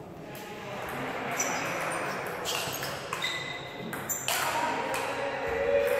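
A table tennis rally: the ball clicking sharply off the bats and the table every half second to a second, some hits with a short ringing ping. Voices murmur in the hall behind.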